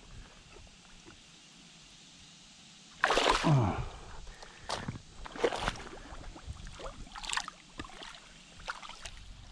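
Water splashing and sloshing as a large catfish thrashes in shallow pond water. Quiet at first, then a burst of splashing about three seconds in, followed by several smaller splashes.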